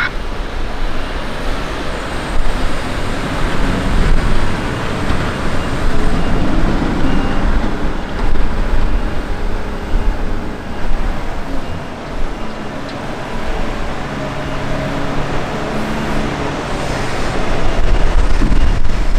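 Volvo L180H wheel loader's six-cylinder diesel engine working under load as the machine drives and pushes sugar beets with its wide bucket. The engine pitch shifts up and down over the last few seconds.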